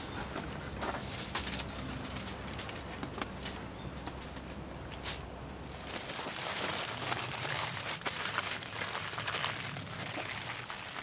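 A steady high insect buzz with a few sharp clicks, cutting off about six seconds in. Then aluminium foil crinkling and rustling as it is folded around a grilled steak and pressed flat by hand.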